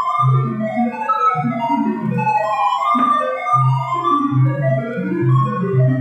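Sound of Sorting sonification of a cycle sort: a rapid stream of short synthesized tones, each pitched by the value of the item being accessed, jumping between low and high notes.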